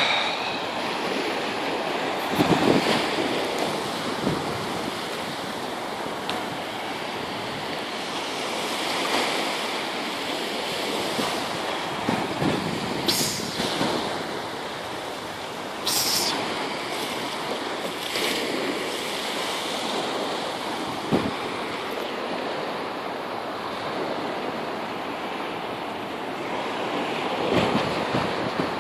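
Sea surf washing onto a sandy beach with wind blowing across the microphone: a steady rushing noise with a few brief louder moments.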